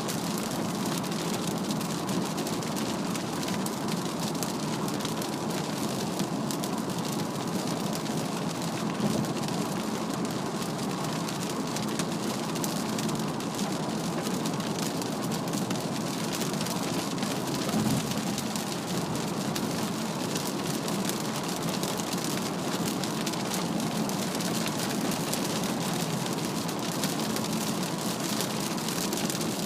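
Heavy rain pelting a Mazda CX-3's body and windscreen at expressway speed, heard inside the cabin as a steady hiss mixed with tyre and road-spray noise. There is a single low thump a little past halfway.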